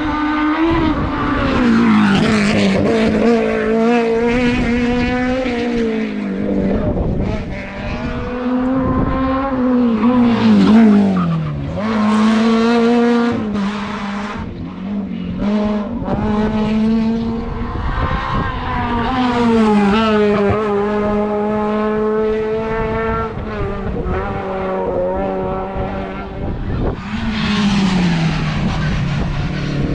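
Hillclimb race car engine under hard acceleration, its pitch climbing and then dropping at each gear change, about five times over the stretch.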